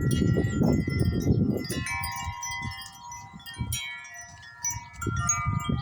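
Wind chimes ringing in a gusting breeze: many tubes struck again and again, their tones ringing on and overlapping. Wind rumbles on the microphone, easing about two seconds in and picking up again near the end.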